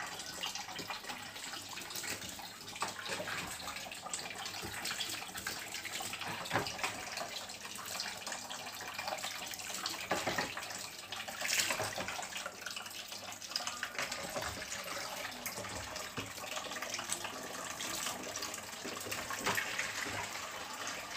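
Water pouring and splashing in a stainless steel kitchen sink as a wet cat is rinsed by hand, with a steady wash of water and a louder splash about halfway through.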